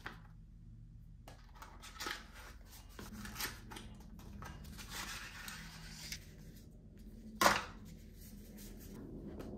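Cardboard smartphone packaging and paper leaflets being handled: light scraping and rustling as card slides against card, with scattered small clicks and one sharp tap about seven and a half seconds in.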